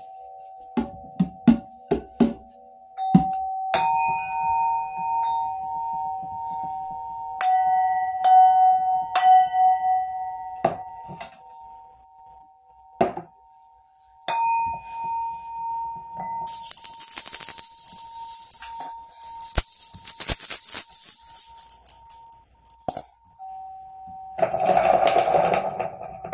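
Metal bells or chimes being struck, several clear ringing tones held and renewed by fresh strikes every second or so, with clicks. Past the middle, and again near the end, a shaker-like rattle joins for several seconds.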